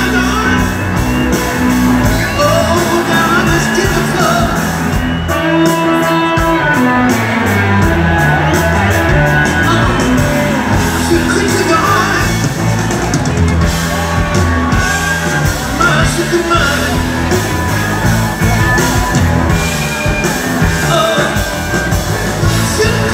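Live rock band playing loud through a concert PA: a male lead singer singing and wailing over electric guitar, bass guitar and drums.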